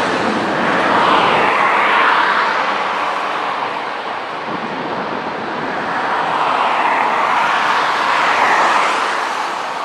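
Jet engines of a Boeing 777-300ER (twin GE90s) at taxi power: a loud, steady rushing roar that swells twice as the airliner rolls past.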